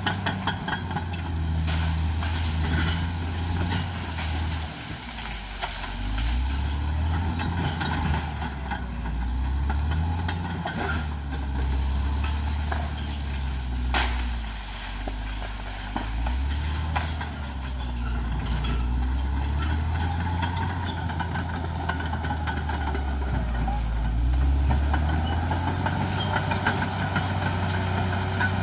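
Caterpillar D6R XL bulldozer's diesel engine running hard, its pitch rising and falling several times as the load changes, with scattered sharp cracks and clanks.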